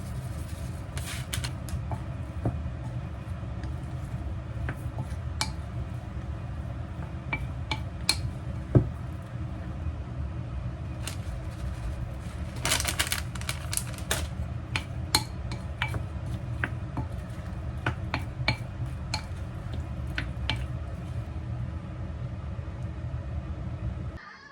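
Dishes and cutlery clinking and tapping in a kitchen, with one sharper knock about nine seconds in, over a steady low hum. The hum and clinks stop abruptly near the end.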